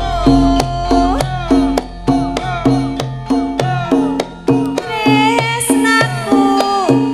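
Javanese gamelan ensemble playing in Sragenan style. Hand-drum strokes of the kendang run over steady metallophone notes, with a deep low hum fading away over the first few seconds.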